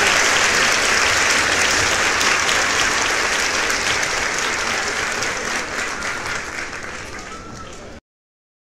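A crowd applauding, the clapping dense at first and fading away steadily until it cuts off to silence near the end.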